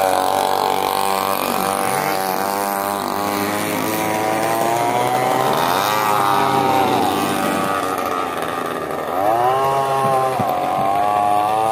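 Several radio-controlled racing boats running flat out on the water, their motors' overlapping high-pitched whine rising and falling as the boats throttle through the turns.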